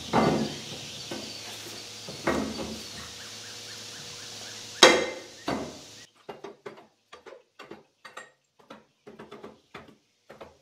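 Steel axle parts being handled and fitted on a Dana 60 steering knuckle: a few clunks of metal on metal, the loudest about five seconds in, then a run of short light metallic clicks, two or three a second.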